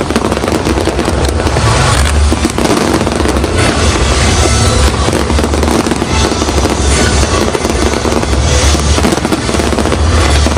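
Fireworks display going off in a dense, continuous run of bangs and crackles, with music playing alongside.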